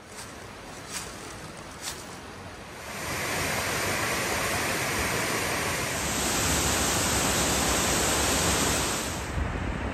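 Steady rush of water that gets louder in two steps, about three and six seconds in, and drops back near the end.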